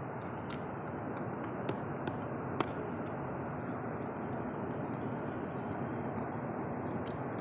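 Rocks and pebbles clicking and knocking together as a hand moves among them: a few scattered sharp clicks, the loudest about two and a half seconds in, over a steady background hiss.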